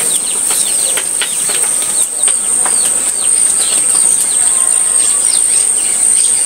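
Many small birds chirping, with a steady run of short, quick calls that sweep downward, over a steady high-pitched whine.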